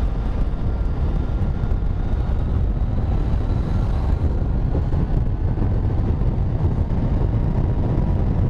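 Heavy wind rush on the microphone while riding a Yamaha MT-09's three-cylinder engine at a steady speed, with faint steady tones from the bike underneath.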